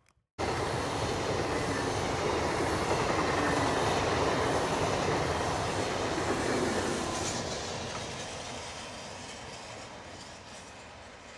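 Regional passenger train of MDVC coaches with an E464 electric locomotive running past: steady wheel-on-rail rolling noise. It starts abruptly about half a second in and fades in the second half.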